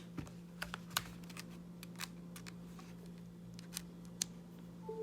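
Light, irregular clicks and taps of a Lightning cable being handled and its connector plugged into an iPad, over a steady low hum. A brief short tone sounds right at the end.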